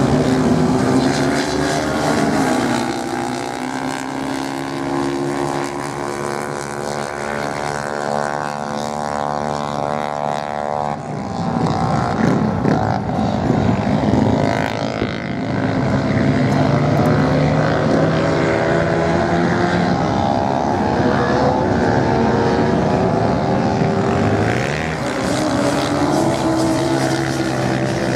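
Several off-road motorcycle engines racing on sand, their pitch rising and falling as the bikes accelerate and ease off. The mix of engines changes abruptly about eleven seconds in.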